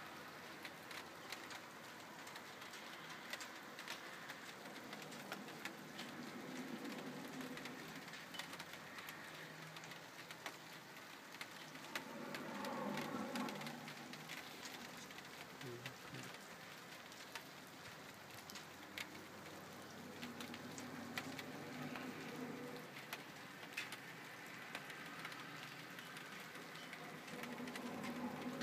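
Steady rain with the patter and clicks of falling drops, under a low droning hum of unknown origin that swells and fades several times, loudest about halfway through.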